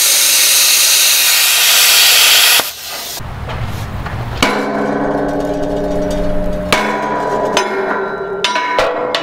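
Plasma cutter hissing steadily as it cuts through a steel I-beam flange, cutting off sharply near the three-second mark. Then several hammer blows on the steel, each ringing metallically.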